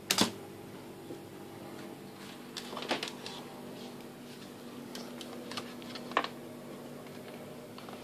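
Scattered clicks and knocks of small objects being handled on an electronics workbench, with a sharp double knock at the very start, a cluster about three seconds in and more around six seconds. A steady low hum runs underneath.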